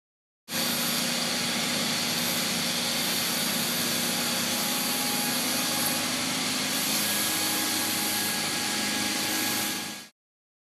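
Steady machine noise, a loud even hiss with a few faint hums, starting about half a second in and cutting off suddenly near the end.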